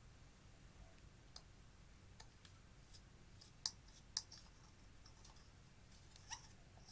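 Sparse light clicks and taps, as of small objects being handled, with two sharper clicks a little past the middle and one more near the end, over a very quiet background.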